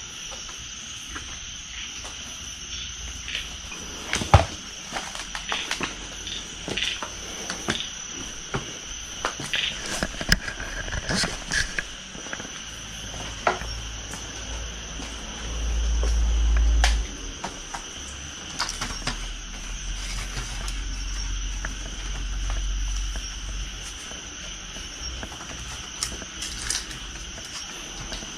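Steady night chorus of crickets, a constant high shrill. Scattered sharp clicks and knocks are heard over it, the sharpest about four seconds in, and a low rumble lasts a second or two past the middle.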